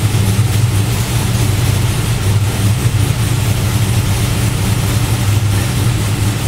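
LS3 6.2-litre V8 in a 1970 Chevrolet Chevelle SS idling steadily, running for the first time since the engine swap.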